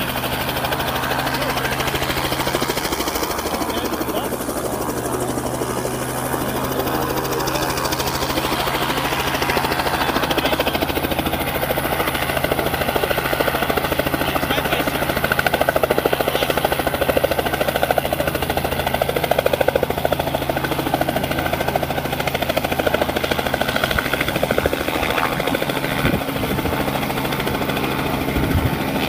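Light two-blade helicopter running on the ground with its rotor turning, a steady engine and blade sound, lifting off near the end.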